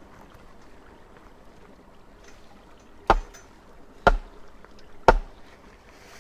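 Three heavy strikes about a second apart, each a deep thud with a short ringing, as a fence post is pounded into the ground. A stream trickles faintly underneath.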